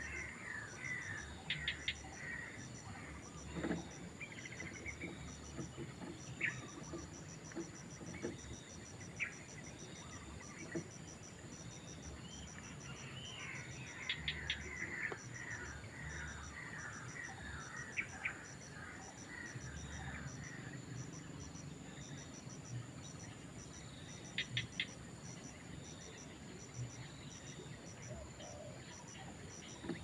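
Steady high-pitched insect chirping, pulsing evenly throughout, with two runs of quick chattering bird calls, one at the start and one about 13 seconds in, and a few sharp clicks scattered through.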